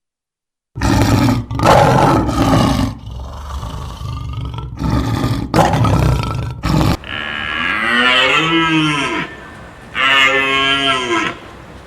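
Cattle mooing: rough, loud calls starting about a second in, then from about seven seconds in two long moos that rise and fall in pitch, about two seconds apart.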